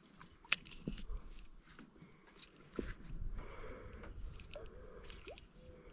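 Steady, high-pitched insect trill, with one sharp click about half a second in and a few faint knocks and rustles.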